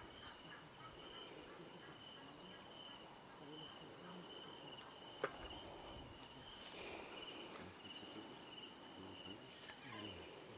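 Faint, high insect trill, pulsing evenly and steadily, with a single sharp click about five seconds in.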